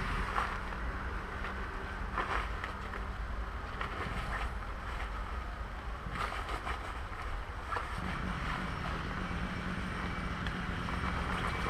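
Wind buffeting the microphone over a steady low rumble, with a few short rustles of a waterproof jacket being put on and adjusted.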